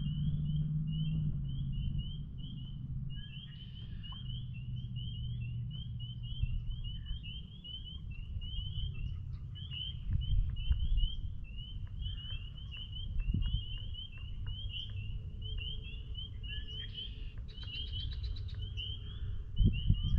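A chorus of spring peepers: many short, rising peeps overlapping without a break, with a low rumble underneath. A brief buzzy trill comes in near the end.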